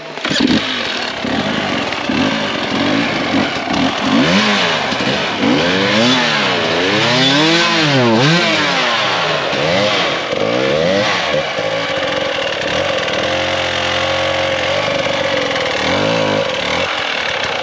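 Husqvarna two-stroke enduro motorcycle engine being revved up and down in quick bursts as the rider works the bike up a steep, rocky climb, then running more steadily for the last few seconds.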